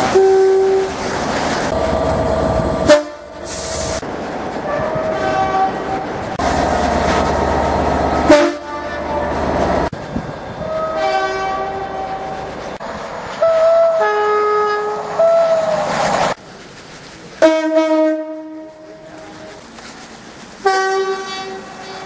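A series of British diesel locomotive and multiple-unit two-tone horns, each sounding a high note and a low note in turn, several times over with abrupt changes between recordings. Train running noise and rail clatter lie between the horn blasts.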